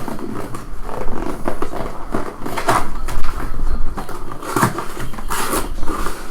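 A trading card hobby box being opened by hand: plastic wrapping crinkling and tearing, with cardboard handling and a few sharp crackles.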